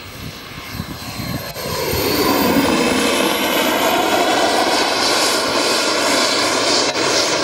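Twin ATJ-170ti model jet turbines of a large RC jet running at high power in flight: a loud rushing jet whine with a thin high tone rising in pitch. The sound gets much louder about one and a half to two seconds in and stays loud.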